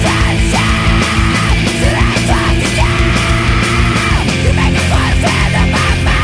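Loud post-hardcore rock band recording: distorted guitars, bass and drums playing at full tilt, with a held melodic line bending over the top.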